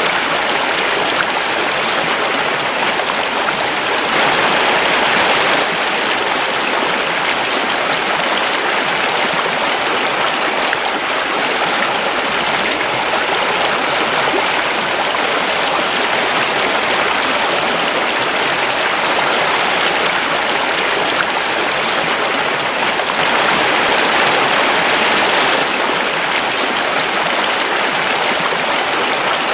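Forest river flowing over rocks: a steady rushing and babbling of water that swells slightly a couple of times.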